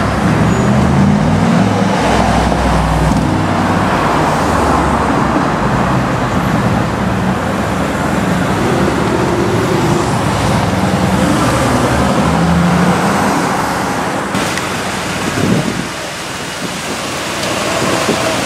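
Brabus 800 Mercedes-AMG G63's twin-turbo V8 running through its exhaust as it drives in city traffic. The low engine note sits under steady road and traffic noise.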